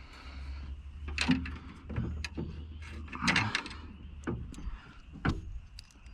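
Hand work on a window regulator inside a car door: a series of sharp metal knocks and clinks as the regulator rails are positioned and fastened, about six in all, with a low hum under the first half.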